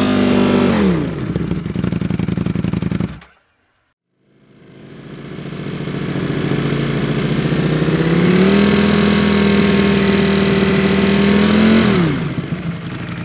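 Ducati Streetfighter V4's V4 engine through an Akrapovič exhaust, held steady at about 6500 rpm and then dropping back to idle about a second in. After a sudden break it idles again, now with Akrapovič dB-killer baffles fitted, rises to a held steady rev for about three seconds and falls back to idle near the end.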